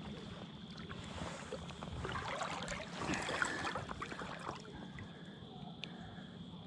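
Steady rush of flowing river water, with a few faint clicks scattered through it.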